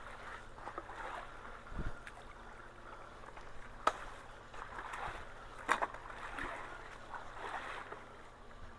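Creek water splashing and trickling, with a low thump about two seconds in and a couple of sharp knocks in the middle.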